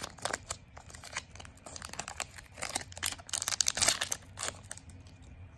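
Foil Pokémon booster-pack wrapper being torn open and crinkled by hand: irregular crackling rustles, busiest around the middle and thinning out near the end.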